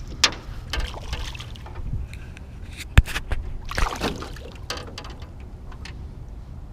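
Sounds aboard a small fishing boat on the water: a low steady rumble with a few sharp knocks, the sharpest about three seconds in, and short swishes.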